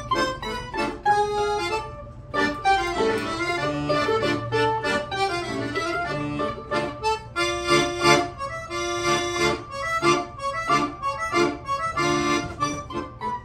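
Accordion and mandolin duo playing a kolomyika, a Ukrainian folk dance tune, in quick, separate notes.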